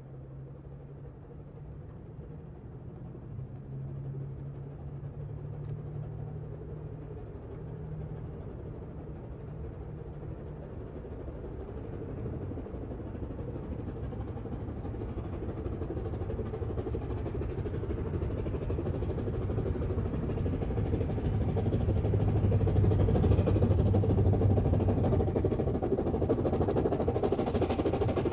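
Three-cylinder BR Standard Class 8P steam locomotive 71000 Duke of Gloucester working hard up a long gradient with a passenger train, its exhaust beating rapidly and growing steadily louder as it approaches.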